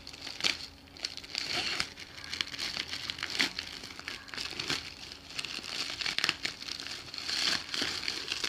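Plastic courier packaging being opened and handled, crinkling and rustling in irregular crackles as the inner plastic packet is pulled out.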